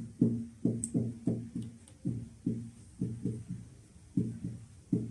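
Background music: a melody of short low notes that each die away quickly, about three a second.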